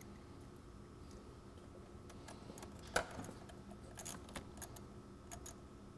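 Small metallic clicks and taps as a battery terminal clamp and a wire's ring terminal are handled and fitted onto the positive battery post. One sharper click comes about halfway through, and a few more clicks follow near the end.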